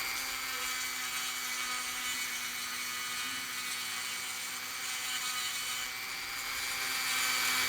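Dremel rotary tool running at a steady high speed, its cutter grinding a groove and undercut into a soft firebrick: a steady motor whine over a gritty hiss.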